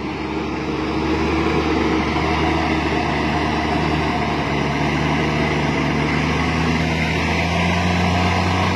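Heavy truck diesel engine running with a steady low drone, swelling a little in the first second and then holding level.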